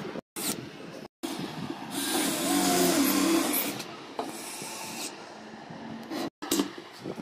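Cordless drill-driver driving screws into a laminated board. The motor runs in short spells, the longest and loudest about two seconds near the middle.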